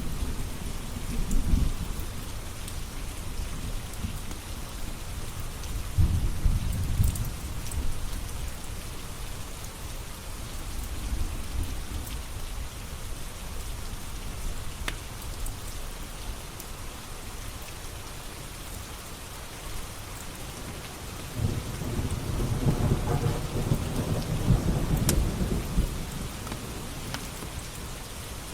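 Steady heavy rain with thunder rumbling low three times, the longest roll near the end. A few faint sharp pops from a crackling log fire are heard over the rain.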